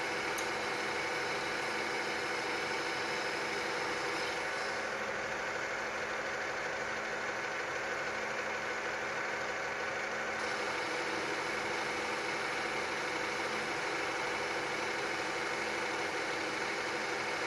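Metal lathe running steadily, a constant mechanical hum with several steady whining tones from its spindle drive and gearing.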